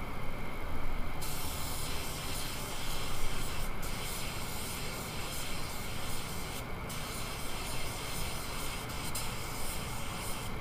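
Compressed-air hiss of a paint spray gun in use, coming on about a second in and briefly cut off twice as the trigger is let go.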